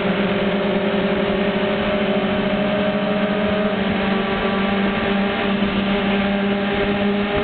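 Sport motorcycle engine running at a steady highway cruise, heard from the rider's seat with wind rushing past. The engine note holds nearly level throughout.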